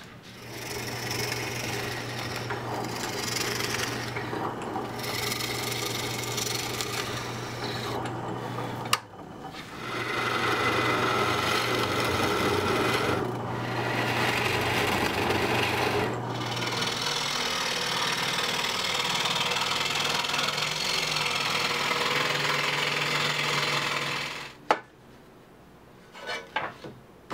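An electric power tool working wood, its motor humming steadily in long stretches. It stops briefly about nine seconds in, settles to a slightly higher hum later on, and cuts off near the end, followed by a sharp knock and a few light clatters.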